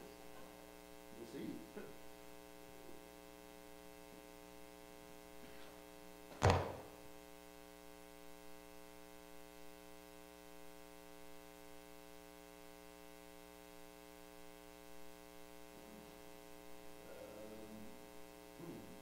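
Steady electrical mains hum in the sound system, with one sharp thunk about six and a half seconds in.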